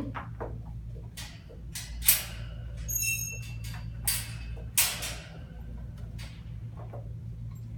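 A handful of sharp metallic clinks and rattles, one with a brief ringing tone, from the wire exercise-pen gate being handled, over a steady low hum.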